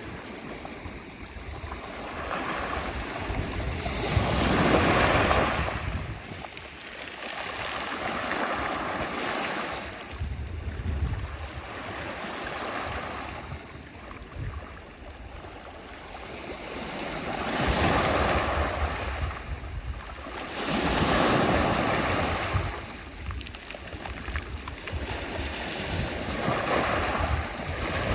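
Sea waves breaking and washing ashore in slow, repeated swells, each rising to a rush of surf and then falling back; the loudest come about five seconds in and twice more in the second half.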